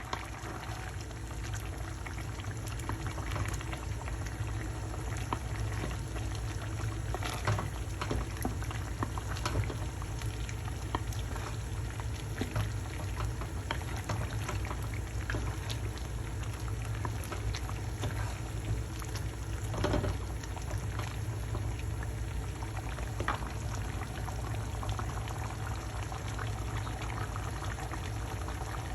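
Food cooking in a pot on the stove: a steady bubbling with many small pops and crackles, over a steady low hum.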